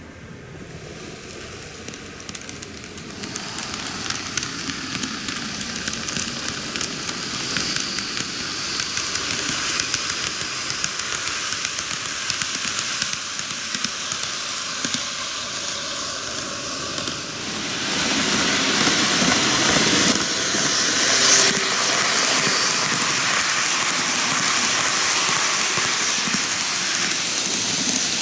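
N-gauge model trains, a TOMIX Odakyu 50000 series VSE and 4000 series, running on superelevated track: a steady crackling rattle of small wheels on the rails. It grows louder about three seconds in and again around eighteen seconds as the trains come nearer.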